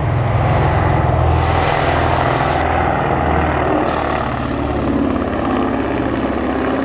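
Junkers Ju 52/3m's three radial engines running loud and steady as the trimotor passes low and climbs away. The sound is strongest in the first few seconds and eases a little after about four seconds.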